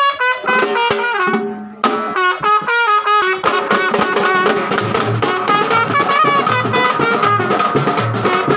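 Brass band with trumpets playing a melody. A drum joins in about three and a half seconds in with a steady beat.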